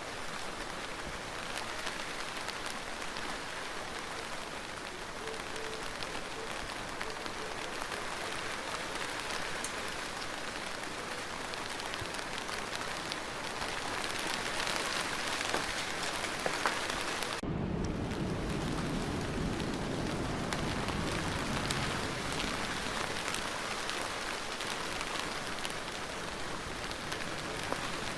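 Steady rain falling, an even hiss. About two thirds of the way through, the sound changes abruptly and a deeper rumble joins underneath.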